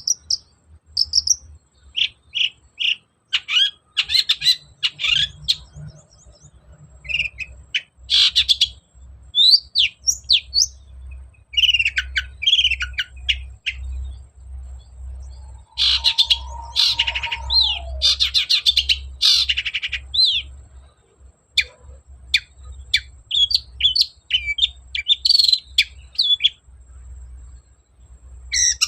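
Long-tailed shrike (cendet) singing loudly in rapid bursts of short, varied chirps and sweeping notes, with a lower falling note about halfway through.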